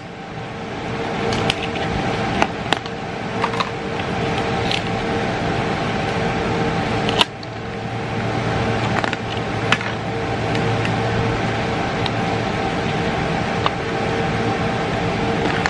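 Steady whir of telecom equipment cooling fans and air handling with a constant two-note hum. Light clicks and crinkles come and go over it as small plastic packets of fiber parts are handled and opened.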